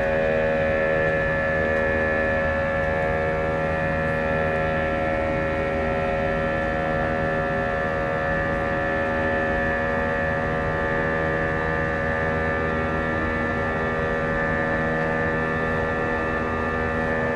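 Airbus A320 turbofan engines heard from inside the cabin during the climb after takeoff: a loud, steady drone made of many steady tones, holding constant.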